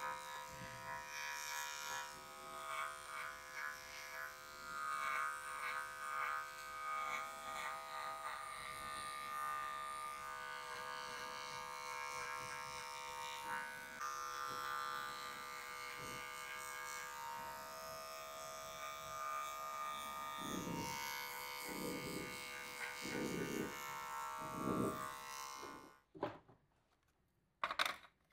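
Electric hair clippers buzzing steadily while cutting short hair at the back of the neck, with a few low thumps shortly before the buzz cuts off abruptly about two seconds before the end. A few sharp clicks follow.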